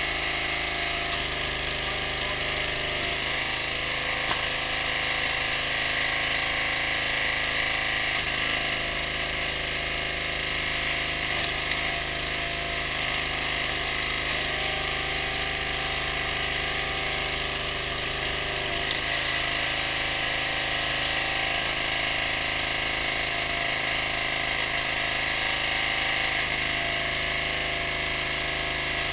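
Single-cylinder Briggs & Stratton 6.5 hp petrol engine running steadily on an 18-tonne hydraulic log splitter as logs are split, its note shifting slightly a few times, with a couple of sharp knocks.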